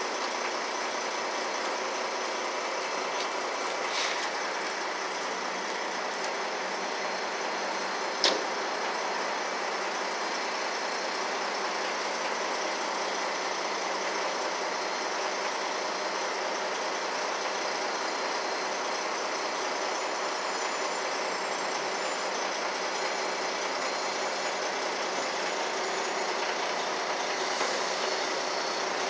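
Heavy truck engine running steadily at idle, with one sharp click about eight seconds in.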